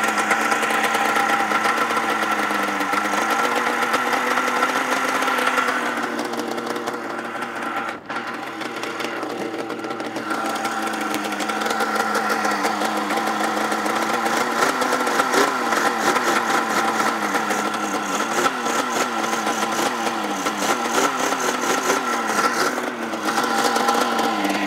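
Polaris XLT snowmobile's two-stroke engine running on the stand, with no cooler in its coolant loop for a heat test. It runs steadily at first, dips briefly about eight seconds in, then its pitch wavers unevenly before settling again near the end.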